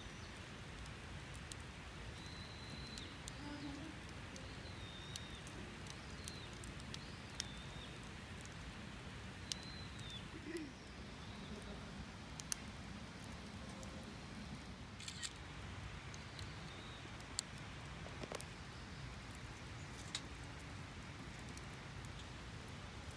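Quiet outdoor ambience: a few faint, short bird chirps over a steady low background hum, with scattered sharp clicks.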